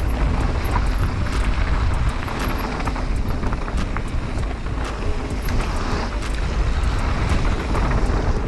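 Wind buffeting the microphone of a camera on a mountain bike riding down a dirt-and-gravel trail, with steady tyre rumble on the loose surface and frequent short clicks and rattles from the bike.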